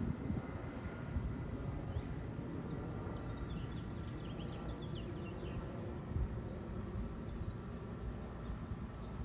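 Jet airliner engines running with a steady whine, with wind buffeting the microphone. A few high bird chirps come in the middle.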